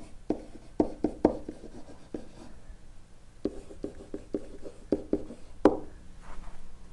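Stylus tapping and scratching on a writing surface as words are handwritten: a series of irregular light taps, with a louder one near the end.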